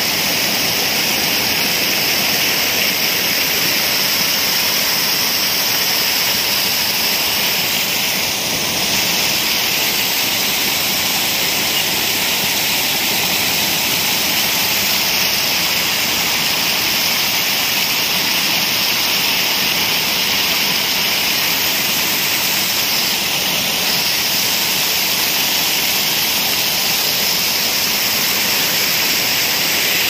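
Lake water overflowing a long stone weir and pouring down its rock face in broad, shallow sheets: a steady, loud rushing of falling water.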